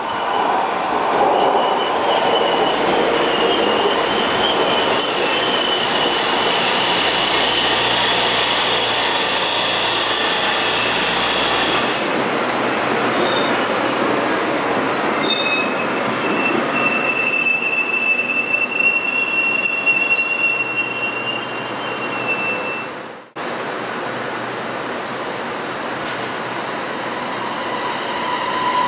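A Taiwan Railways train running through the station, its wheels squealing in high drawn-out tones that come and go over the rail noise. Late on the sound drops out for a moment, then a steadier train running noise carries on without the squeal.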